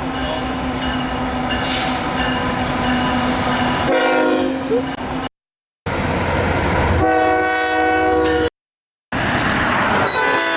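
Train horns blowing chords over the rumble of passing trains, in three short stretches, each cut off abruptly by a brief silence, about five and eight and a half seconds in.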